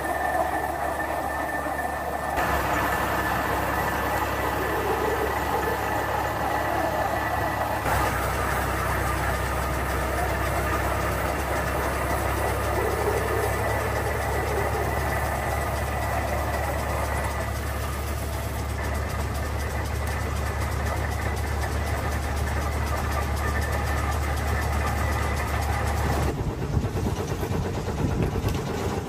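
Veneer-making machinery running steadily: a rotary veneer peeling lathe and its drive motor make a constant low drone with mechanical clatter on top. The sound changes abruptly about two seconds in, again around eight seconds, and near the end.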